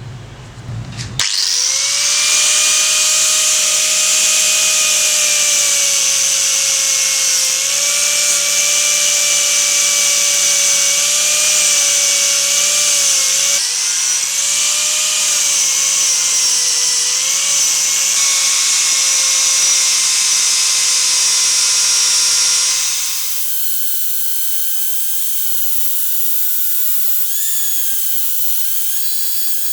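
Small electric power tool starting about a second in and running with a steady high whine over a strong hiss. About 23 s in the hiss drops away and the tool keeps running more quietly, its whine a little lower.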